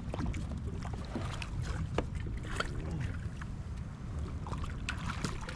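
Low wind rumble on the microphone and water against a fishing kayak, with scattered light clicks and knocks while a fish is reeled in on a spinning rod. There is a brief falling tone near the middle.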